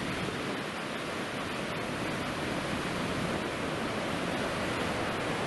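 Red, sediment-laden river water rushing over rock rapids, a steady even rush that swells slightly toward the end.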